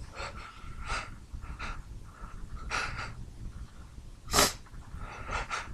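A man's sneezing fit: a string of short, sharp breaths drawn in as a sneeze builds, then one loud sneeze about four seconds in, followed quickly by more short breaths.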